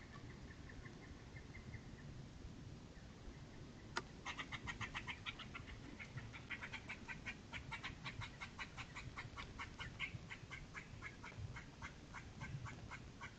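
An animal calling in a rapid series of short, repeated notes, several a second, which begin with a sharp click about four seconds in and keep going.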